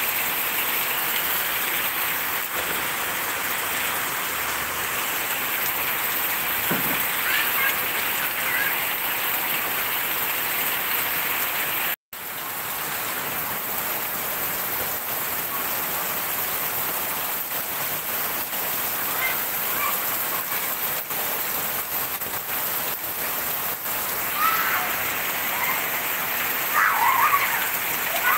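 Heavy rain pouring down, a dense steady hiss of rain falling on pavement and leaves. The sound cuts out for an instant about twelve seconds in.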